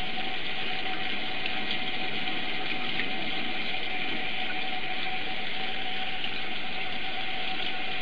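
A machine running steadily: an even hiss with one constant hum tone through it, unchanging in level.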